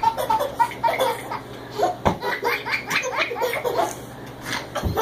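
A toddler laughing hard in a run of short, high-pitched bursts, several a second, with two dull thumps, one about two seconds in and one near the end.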